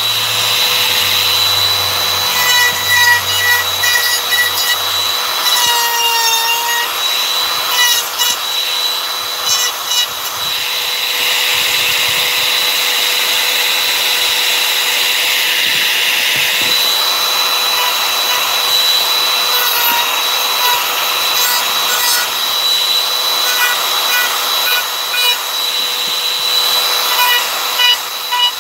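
Compact trim router running at high speed and cutting into a wooden carving, with a steady high whine over rough cutting noise. The pitch sags briefly about six seconds in as the bit takes a heavier cut.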